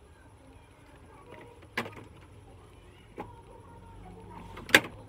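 Plastic lid of an Xtreme sandwich maker being unlatched and swung open: three separate sharp clacks, the loudest near the end.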